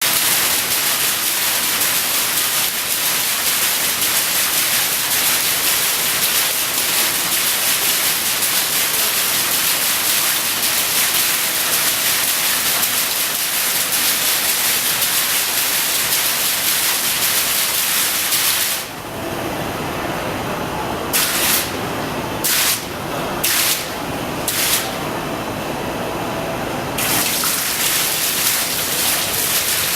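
Water falling from a waterfall display in a steady, heavy splashing hiss. About two-thirds of the way through the fall thins out, leaving four short gushes, and a lower background murmur shows through until the full fall comes back near the end.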